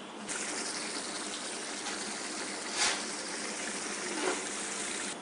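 Small-fish curry boiling in an uncovered pot on a gas burner: a steady bubbling hiss, with two louder pops, one near the middle and one later on.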